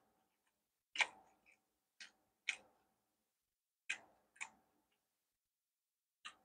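Close-miked chewing: sharp, quiet clicks and crunches from the mouth, coming in pairs about half a second apart, a few times over.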